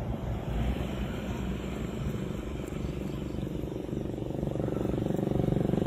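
A motor engine running and drawing nearer, growing louder from about four seconds in, over a low rumble of wind on the microphone.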